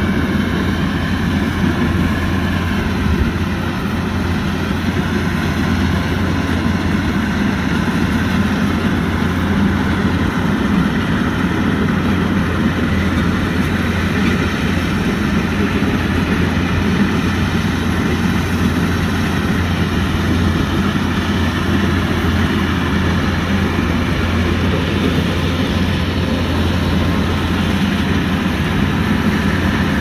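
Kubota combine harvester's diesel engine running steadily, a continuous low drone with machinery noise over it.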